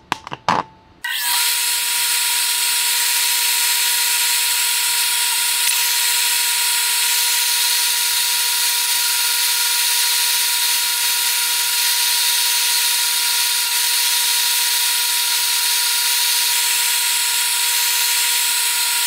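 Bench grinder running steadily while a tungsten carbide rod is ground against its wheel to form a fly cutter's angled point: a loud, even hiss over a steady hum. A few clicks come first, and the grinding starts abruptly about a second in.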